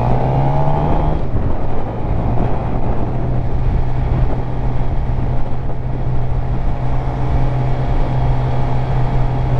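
Suzuki GSX-R750 inline-four motorcycle engine on the move: its pitch climbs in the first second or so as it pulls, then it runs at steady revs while cruising.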